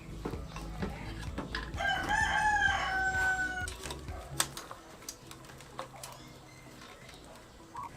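A rooster crowing once, a single call of about two seconds that rises and then holds its pitch. A few light clicks follow.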